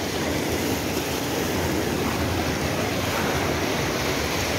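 Shallow surf washing up over wet sand at the water's edge, a steady rushing wash with no distinct breaks.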